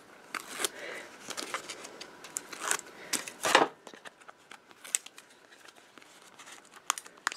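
Backing liners being peeled off strips of double-sided adhesive tape on a cardstock panel, with paper rustling and small ticks and clicks; the loudest is a short rustle about three and a half seconds in.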